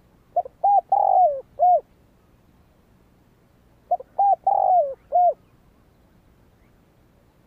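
Spotted dove cooing twice, a few seconds apart. Each phrase has four coos, the third longer and falling in pitch.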